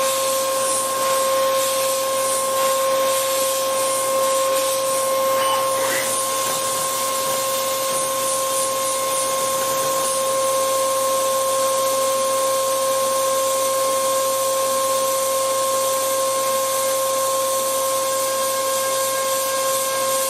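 CNC milling machine's end mill cutting a pocket in a metal part: a steady high whine at one pitch over a constant hiss.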